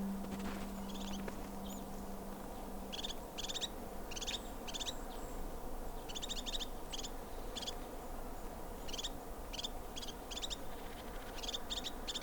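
Small forest birds calling: quick groups of short, high chirps, repeated every second or so.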